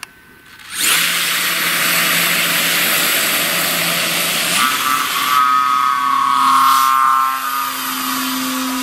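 Electric motor of a Hacker B50 driving a 16x16 Freudenthaler propeller, starting suddenly about a second in and running at full power as a loud whirring rush with a steady whine. Its pitch shifts a few seconds later as the glider accelerates off its takeoff dolly and climbs away.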